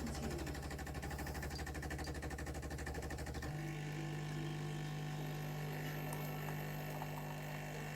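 Tassimo Suny coffee machine running a brew cycle: a rapid, even pulsing that changes abruptly about three and a half seconds in to a steady hum.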